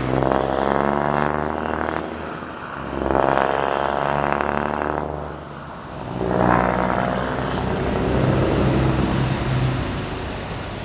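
Scania NextGen S500's straight-six diesel on an open pipe, pulling away hard in three loud pulls with two brief dips between them where it changes up, fading as the truck drives off.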